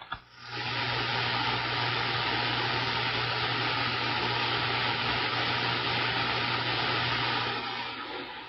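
CB radio receiver static: a steady hiss with a low hum from the radio's speaker, the channel open with no readable voice, fading out near the end.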